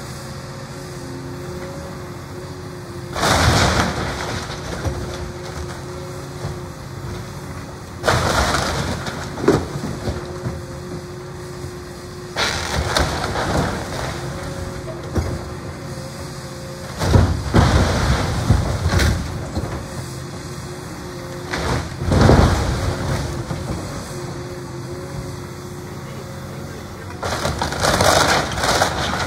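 Caterpillar tracked excavator engine running steadily while its bucket tears into a wood-frame cabin, with about six loud crashes of splintering boards and roofing, each lasting a second or two.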